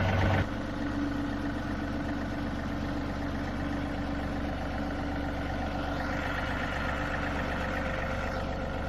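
John Deere 3038E tractor's three-cylinder diesel engine idling steadily, just started in neutral with its newly replaced neutral safety switch. About half a second in it drops to a quieter, lower idle, and a higher-pitched layer joins for a couple of seconds near the end.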